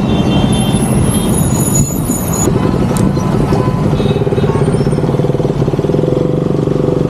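Motorcycle engine running as the bike pulls away into traffic, its note climbing steadily over the last few seconds as it accelerates.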